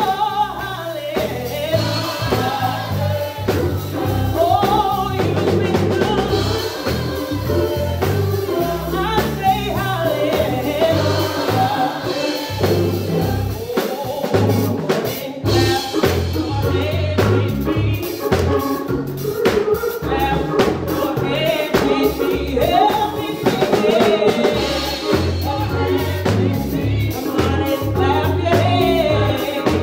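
Two women singing a gospel song into microphones over bass and drums.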